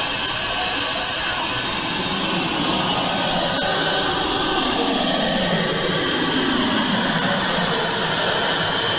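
Vacuum pickup of a lollipop prize machine running: a steady, loud rushing hiss of its suction blower. In the second half a lower tone slides down in pitch as the head carries a lollipop.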